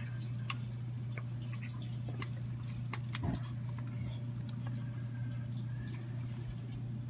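Steady low rumble of a propane burner firing under a stainless brew kettle, with scattered light drips and ticks as wort drains in, and a soft knock a little after three seconds in.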